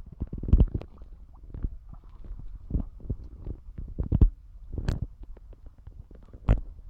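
Irregular low thumps, rubbing and clicks: handling noise from a phone held in a plastic waterproof case, with two sharper clicks about five and six and a half seconds in.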